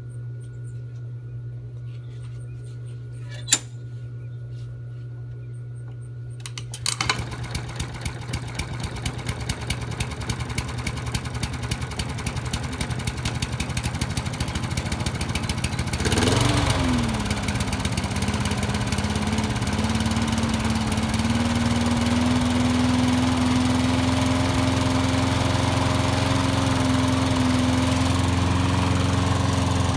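Quantum 35 lawn mower engine, pull-started with a homemade tin-can rope starter, catching about seven seconds in after a faint hum and a single click. It runs rough at first, surges up and back down about halfway through, then settles into a steady run.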